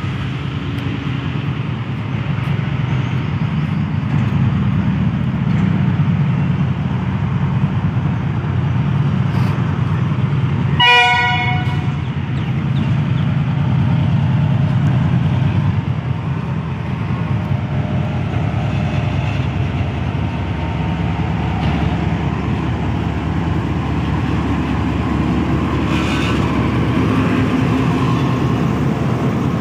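Pakistan Railways GEU-40 diesel-electric locomotive pulling a passenger train out of the station and passing close by, its diesel engine running loudly and steadily. About a third of the way through it gives one short horn blast.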